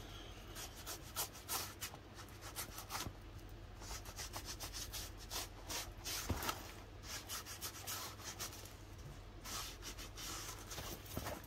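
Paper being rubbed and pressed down by hand to stick a glued piece in place: a run of short, irregular scratchy rubs and rustles.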